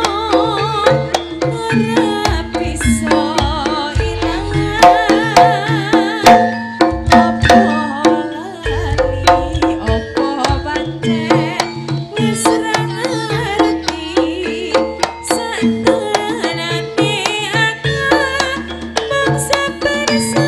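Live East Javanese jaranan gamelan music: kendang hand drums beating a busy rhythm under steady gong and metallophone tones, with a wavering high lead melody on top.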